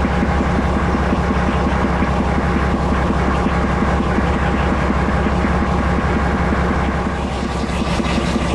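Class 42 Warship diesel-hydraulic locomotive's Maybach diesel engine running loud and steady with a fast beat, heard from inside the cab. This is the revived engine, described as in an awful state with a serious knock.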